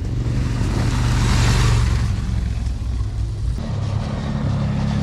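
A motor vehicle's engine running steadily with road noise. A rushing swell comes about a second and a half in, and the sound changes abruptly after about three and a half seconds.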